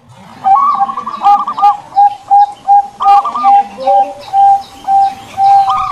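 Zebra dove (perkutut) singing: a rolling, trilled coo, then a string of short, evenly spaced coos at about two to three a second. The trilled phrase comes again about halfway through and once more at the end.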